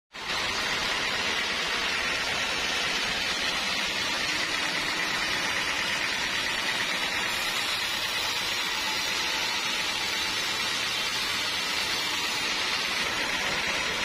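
Band sawmill blade running through a large bayur (wadang) log, making a steady, even hiss.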